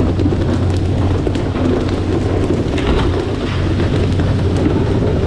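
Fishing boat running at speed: a steady low engine hum under the rush and splash of water spraying off the hull.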